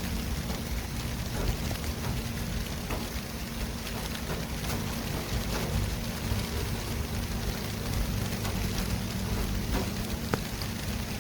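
City traffic ambience: a continuous wash of noise over a deep rumble, with a low steady hum and scattered small ticks and patters.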